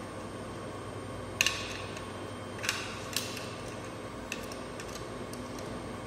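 Hard plastic clicks as the parts of a smoke detector head are handled and snapped back together: a sharp double click about a second and a half in, then three lighter clicks, over a steady background hum.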